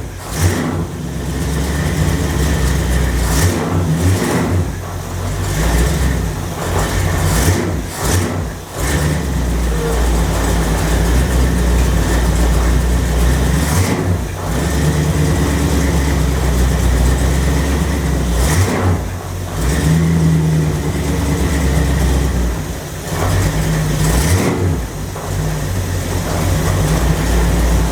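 Engine of a 1929 Chrysler hot rod running and revving, its level rising and dipping several times. Meanwhile its 727 TorqueFlite automatic, freshly refilled and fitted with a Transgo shift kit, is shifted through the gears on its first test run.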